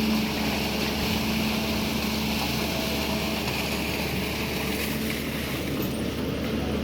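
SANY excavator's diesel engine running steadily under load with a steady hiss over it.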